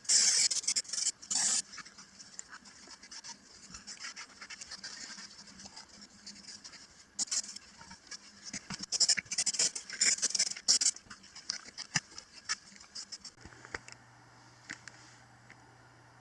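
Dry scratching and rustling in irregular bursts, with a few sharp clicks. The loudest bursts come at the start and again in the middle. A steady low hum remains near the end.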